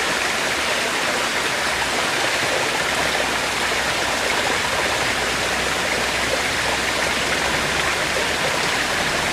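A steady, even rushing noise, without change or any distinct calls.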